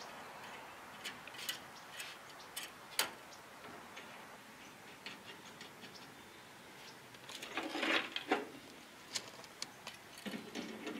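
Light metallic clicks and taps of a steel brake line and a brass adapter fitting being handled and threaded into the master cylinder by hand, with a louder run of rattling clicks about eight seconds in.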